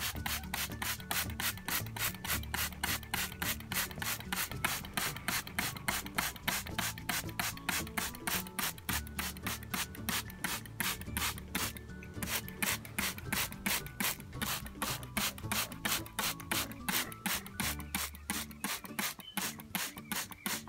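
Hand trigger spray bottle squeezed rapidly and repeatedly, about four to five squirts a second, misting water onto potting soil.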